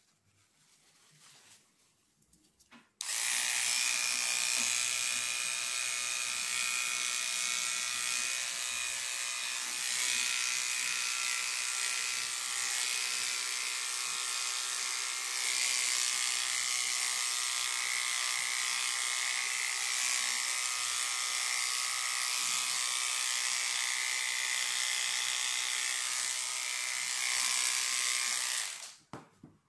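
Electric pet hair clippers running steadily as they shave a dog's fur away from infected bite wounds. They switch on suddenly about three seconds in and cut off just before the end.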